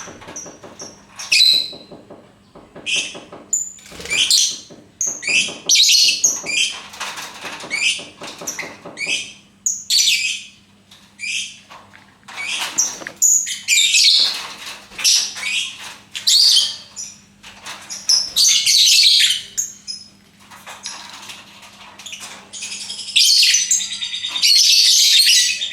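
Lovebird chirping and chattering in a string of short, shrill calls, with a couple of longer chattering bursts in the second half.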